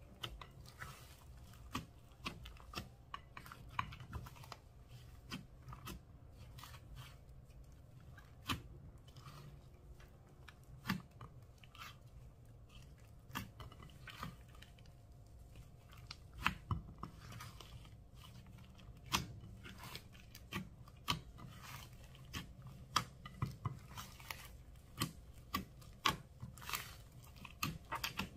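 A large mass of mixed slime with foam beads being kneaded and squished by hand in a glass dish, giving irregular sharp clicks and pops.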